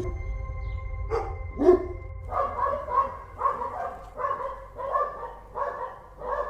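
A dog barking: two single barks, then a steady run of repeated barks, about two a second.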